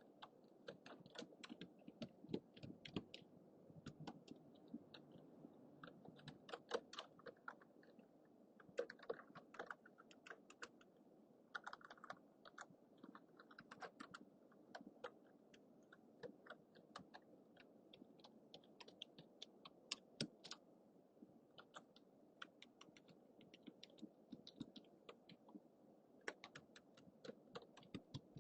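Computer keyboard typing: quiet, irregular runs of key clicks, several a second, over a faint low hum from a low-budget microphone.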